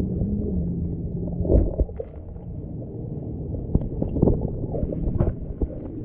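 Muffled underwater sound from a submerged camera: a low rumble of moving water with a steady low hum for the first second and a half, and a few dull knocks scattered through.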